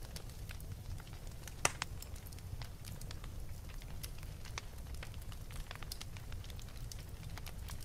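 Wood fire crackling: a low steady rumble with irregular sharp pops and snaps, the loudest snap about one and a half seconds in.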